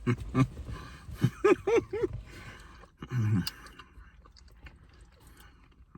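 A person biting into and chewing a caramel apple, with short crunching sounds and a few brief voiced sounds about a second and a half and three seconds in.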